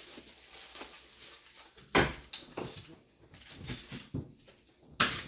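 Rustling and crackling of a package being handled and opened, with sharp crackles about two seconds in and again near the end.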